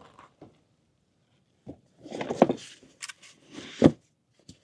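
Homemade cardboard box battery cover, stiffened with wood, scraping and knocking as it is pushed into place in a car's footwell: a rustling scrape about two seconds in, then another scrape ending in a sharp knock near the end.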